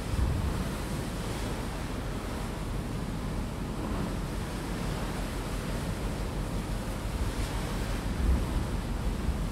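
Steady rush of wind and sea water washing past a moving passenger ferry, with wind buffeting the microphone in low gusts, strongest just after the start and near the end.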